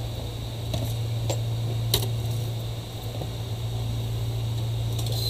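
Steady low machine hum in the workshop, with a few light clicks and taps of laptop casing parts being handled.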